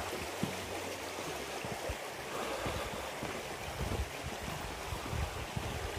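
Flowing river water, a steady even hiss, with irregular low rumbles underneath.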